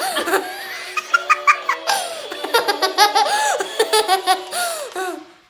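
Children laughing and giggling in high voices, with music from the Chow Crown game toy playing underneath.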